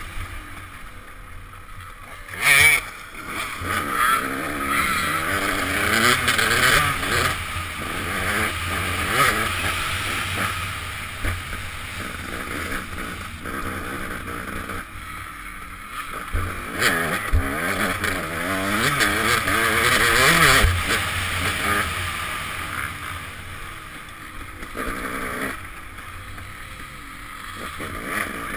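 KTM dirt bike engine heard from a helmet-mounted camera, revving up and down again and again as the rider accelerates, shifts and backs off through the turns. A sharp knock stands out about two and a half seconds in.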